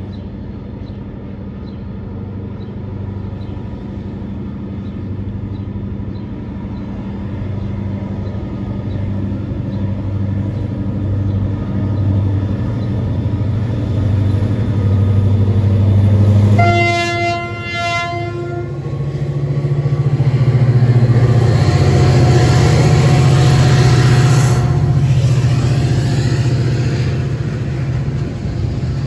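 Diesel freight locomotive hauling a loaded cereal hopper train, its engine drone growing louder as it approaches. About seventeen seconds in it sounds a chord horn for a second and a half, then its engine comes by loudly and the loaded wagons roll past.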